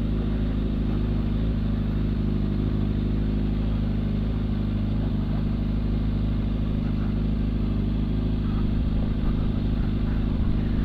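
Suzuki GSX-R750 SRAD's inline-four engine running steadily at low, even revs while the motorcycle rolls along at slow speed.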